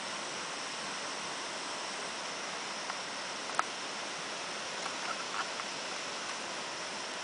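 Waterfall rushing steadily, a constant hiss of falling water, with a few short faint clicks about halfway through.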